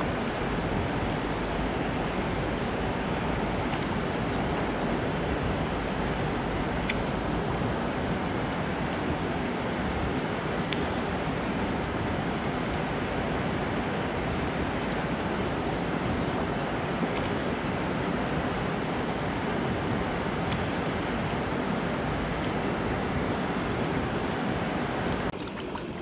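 Water rushing steadily over a concrete spillway weir and churning in the outflow below, a constant even rush. It drops to a quieter rush near the end.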